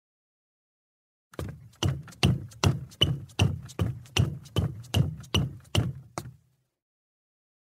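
Footsteps on wooden stair steps: about a dozen even steps, roughly two and a half a second, each a thud with a sharp click. They start a little over a second in and stop about six seconds in.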